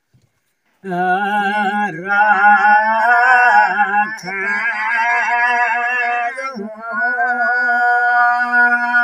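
Elderly man singing a Nepali folk song unaccompanied, in long drawn-out phrases with a wavering pitch, starting about a second in after a short silence.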